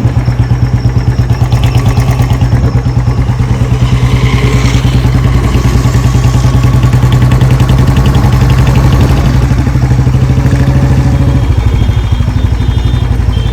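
Royal Enfield Bullet's single-cylinder engine running with an even, rapid pulsing beat.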